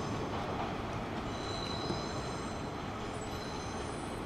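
Hanshin 9300 series electric train running slowly into a station, a steady rumble with a faint high-pitched squeal joining about a second and a half in.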